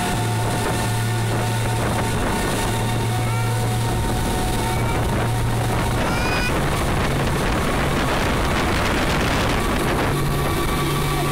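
Speedboat's twin outboard motors running at speed, a steady engine drone, with wind on the microphone and the rush of the wake. The engine note shifts slightly about halfway through.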